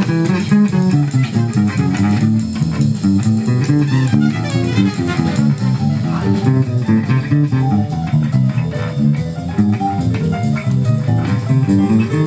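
Four-string electric bass guitar played fingerstyle: a steady, unbroken run of quick plucked notes in a jazz line.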